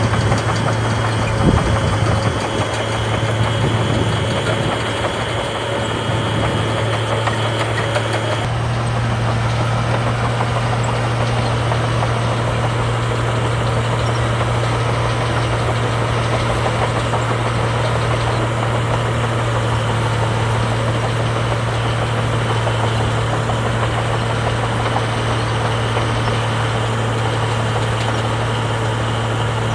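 Heavy diesel engine of earthmoving machinery running steadily at an even pitch, with a single knock about a second and a half in. At about eight seconds a high whine stops and the engine drone becomes stronger.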